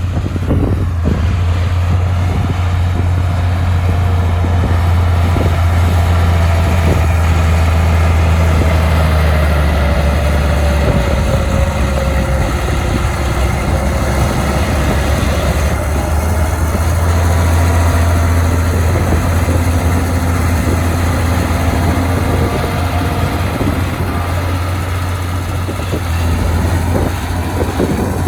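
Heavy diesel engine of earthmoving machinery running steadily with a deep drone. A faint whine rises and falls about ten seconds in.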